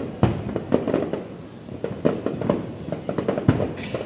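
Aerial fireworks display: a rapid, irregular string of booms and pops, several each second.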